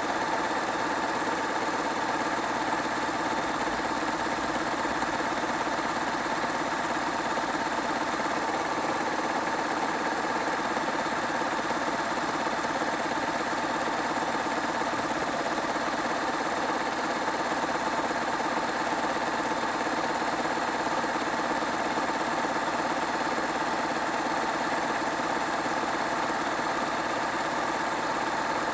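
Hoover washing machine spinning steadily, its motor giving an even whine over a constant drum rumble.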